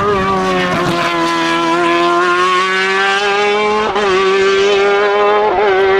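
Competition car's engine running hard at high revs at a near-steady pitch, with short breaks about a second in, near four seconds and at about five and a half seconds.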